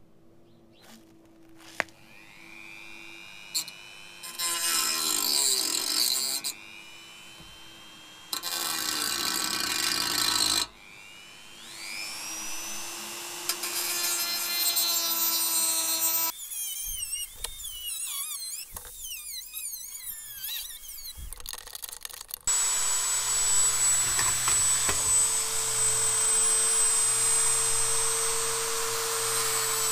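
Dremel rotary tool with a small abrasive cut-off disc cutting rusty steel exhaust pipe and its clamp. A high motor whine spins up and is broken by stretches of loud grinding as the disc bites into the metal, with a long steady stretch of cutting over the last several seconds.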